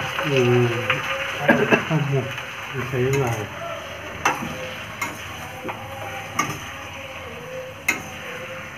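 Chicken sizzling as it fries in a steel kadai while a spatula stirs and scrapes it, with a series of sharp clinks of the spatula against the pan in the second half.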